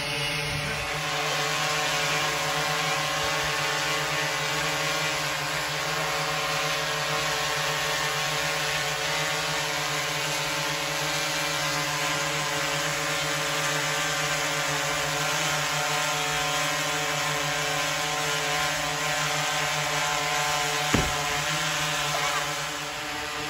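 Steady mechanical hum with several held tones that do not change, like large building ventilation machinery. A single thump sounds near the end.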